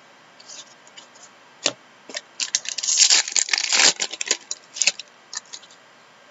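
A trading card pack wrapper being torn open and crinkled: a dense burst of tearing and crackling starting about two and a half seconds in and lasting about two seconds, with scattered clicks of cards and packaging being handled before and after.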